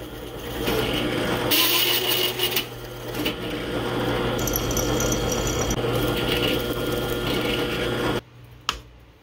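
Drill press running with a hole saw cutting through a steel plate: a steady motor hum under grinding, scraping cutting noise, with a high squeal in the middle. The sound cuts off abruptly about eight seconds in, followed by a single click.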